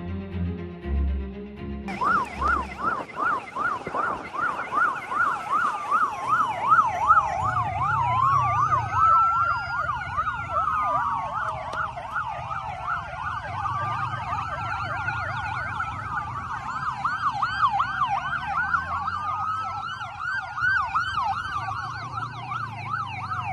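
Dramatic music for the first two seconds, then several police escort sirens sounding at once: a fast yelp, joined from about eight seconds in by slower rising and falling wails.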